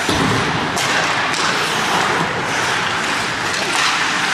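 Ice hockey game play in a rink: a steady noisy wash of skates on the ice, broken by a couple of sharp clacks of sticks and puck about a second in.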